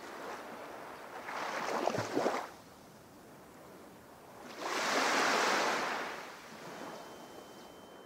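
Sea waves washing in, two swells of surf, the second louder. A thin steady high whistle comes in near the end.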